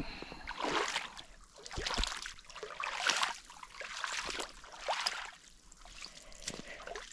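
Wellington boots wading through deep puddle water, a splashing slosh with each stride, about one step a second.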